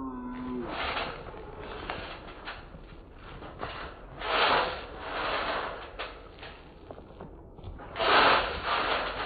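Trampoline springs creaking and ticking as people shift and bounce on the mat, with two louder rushing swells about halfway through and near the end.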